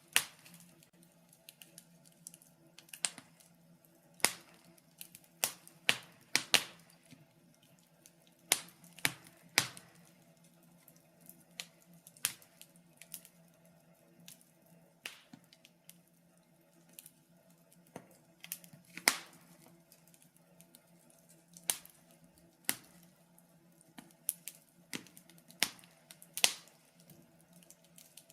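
Wood fire in a fireplace crackling: irregular sharp pops and snaps, a few much louder than the rest, over a faint steady hum.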